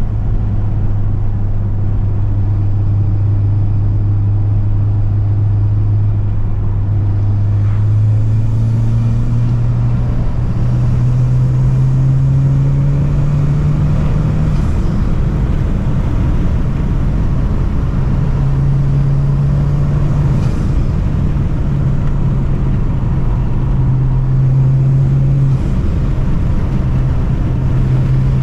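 Honda Civic Type R engine pulling under load with loud intake noise, its pitch climbing slowly over the first half, then rising and dropping in steps with throttle and gear changes.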